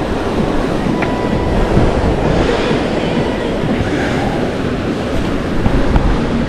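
Ocean surf washing and breaking against the rocky cliff base, with wind rumbling on the microphone: a steady, loud rush.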